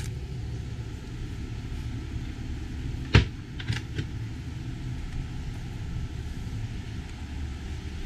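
A steady low rumble with one sharp knock about three seconds in, followed by two lighter clicks.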